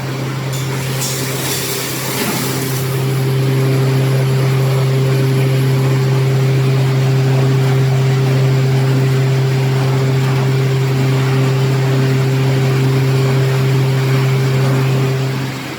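Electric silage and straw baler-wrapper running with a loud, steady low hum. A hissing noise rises about a second in and fades by about three seconds in.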